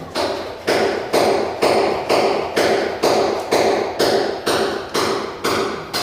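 Steady rhythmic tapping on a wall-mounted switch or outlet plate in its box, about two strikes a second, each ringing briefly.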